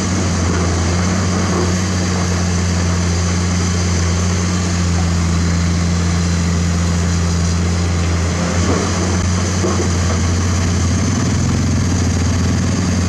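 Komatsu PC210 hydraulic excavator's diesel engine running steadily under working load, a constant deep hum that holds throughout.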